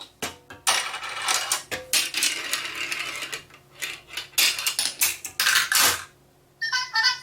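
Glass marbles rolling and clattering down a wooden marble run: a dense rattle with many sharp clicks and knocks, then a few short pitched notes near the end.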